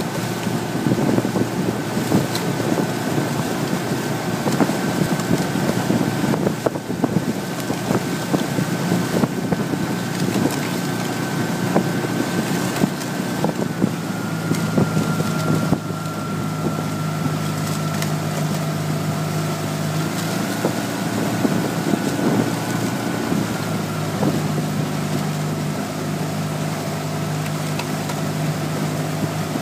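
A coaching launch's motor runs steadily at cruising speed, with wind buffeting the microphone. Its high whine drops slightly in pitch about halfway through.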